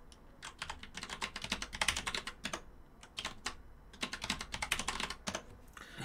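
Typing on a computer keyboard in quick runs of keystrokes with short pauses between, as a password is typed and then typed again.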